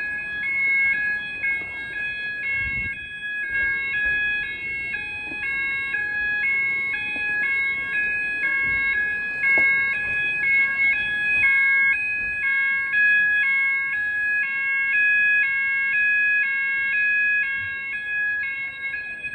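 Apollo XP95 fire alarm sounders going off: a two-tone warble switching pitch about twice a second over a steady continuous tone.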